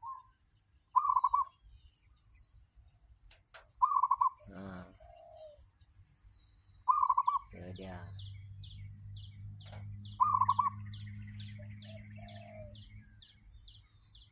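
Caged zebra dove (merbok) calling: short cooing phrases four times, about three seconds apart. A smaller bird chirps rapidly in the second half, over a low steady hum that starts about halfway through.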